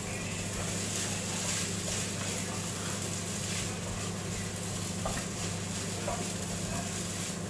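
Microwave oven running: a steady hum with an even hiss from its fan.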